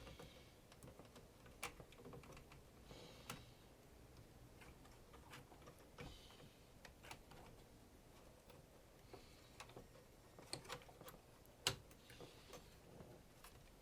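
Faint, irregular small clicks and light taps a second or so apart, with one sharper click near the end.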